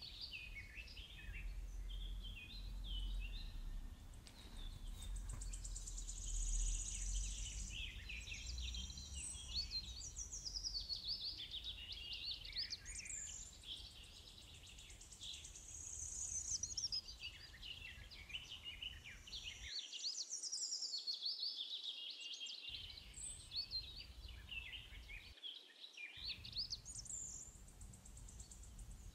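Birds singing, with a steady stream of chirps and warbles over a low background hum.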